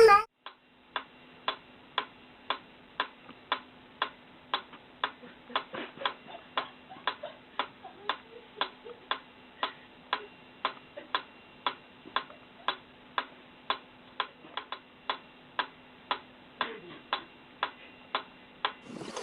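A clock ticking steadily at about two ticks a second, with a faint steady hum underneath.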